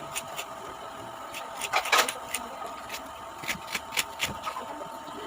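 Crunching and chewing of raw jicama close to the microphone: a run of short, sharp crunches, loudest about two seconds in.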